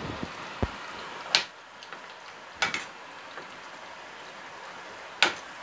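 Metal ladle knocking against a stainless-steel pot while thick curry is stirred: a handful of short, sharp clinks a second or more apart, over a faint steady hiss.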